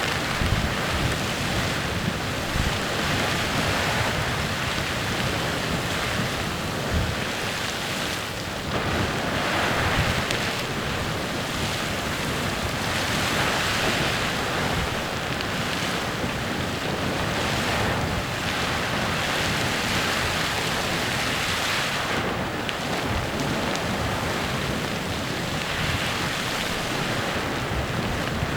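Clepsydra Geyser erupting: a steady rushing hiss of jetting water and steam that swells and eases every few seconds.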